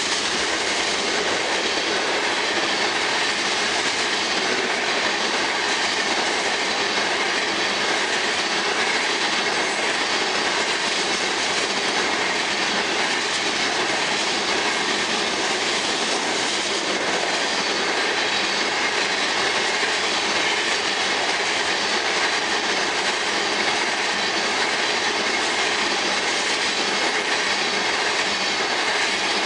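Oil tank cars of a unit freight train rolling past at speed: a steady, loud rush and rumble of steel wheels on the rails.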